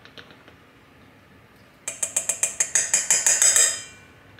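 Spice jar shaken hard over a metal measuring spoon, pumpkin spice rattling out through the sifter lid in a quick run of about seven shakes a second for two seconds, after a few faint clicks at the start.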